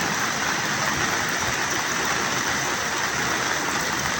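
Steady rushing of water during a heavy flood, an even hiss with no breaks.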